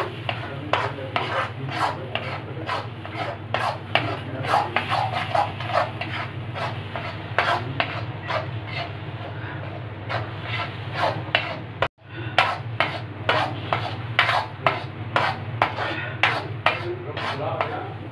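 Spatula scraping and stirring thick ground horse gram paste around a metal kadhai in quick rasping strokes, about two or three a second, as the paste is roasted on low heat and scraped off the bottom to keep it from sticking. A steady low hum from the induction cooktop runs underneath, and the strokes break off for an instant about two-thirds of the way through.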